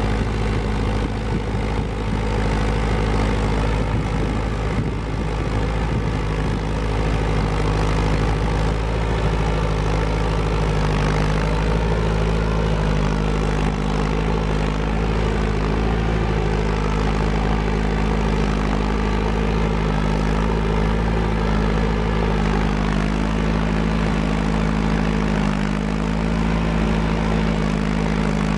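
Tractor engine running steadily under load while pulling a two-bottom moldboard plow through sod, its note shifting slightly about twelve seconds in.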